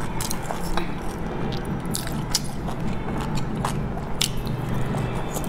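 Close-miked mouth sounds of a person eating soft dumplings: wet chewing and biting with many sharp smacking clicks, over a steady low hum.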